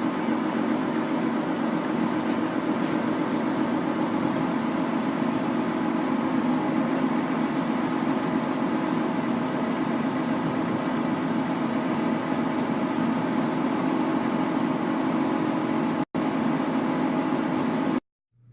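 Steady machine-like whirring hum with a hiss, unchanging in pitch and level, broken by a split-second dropout near the end and then cutting off abruptly.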